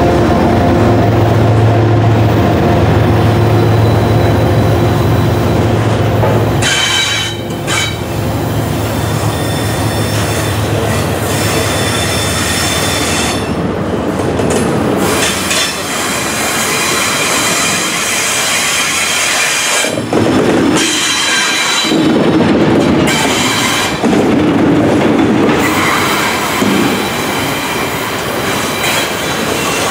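Double-stack intermodal well cars rolling slowly past close by, their wheels rumbling and clacking on the rails. High-pitched wheel squeal comes and goes several times.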